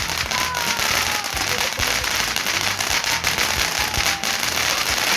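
Garden fireworks going off: a dense, continuous crackling with many sharp pops, and faint falling whistles through the first few seconds.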